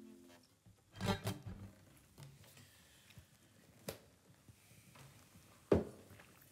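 The last chord of an acoustic guitar rings out and fades within the first half-second. Then come a few sharp knocks and clinks of mugs and crockery handled on a table: a close pair about a second in, one near four seconds, and the loudest near the end.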